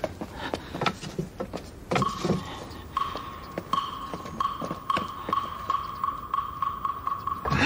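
Light background music cue: hollow woodblock-like taps at a steady beat of about one every 0.6 s, joined about two seconds in by a sustained high note that pulses with the beat.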